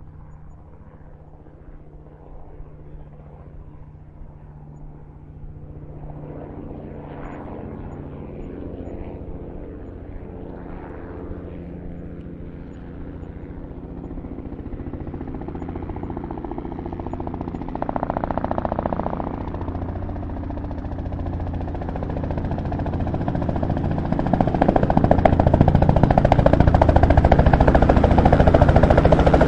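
A helicopter approaching, its engine and rotor sound growing steadily louder and loudest over the last few seconds.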